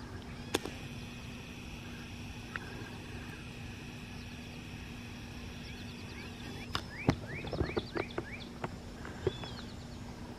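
Steady low hum of a maintenance-of-way rail machine's engine running at idle. Songbirds chirp in quick runs of short falling notes in the second half, and a few sharp clicks sound, about half a second in and again about seven seconds in.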